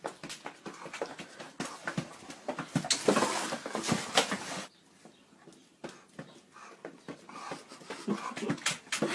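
A dog vocalising amid scuffling and knocks, with a louder noisy stretch of about two seconds around the middle.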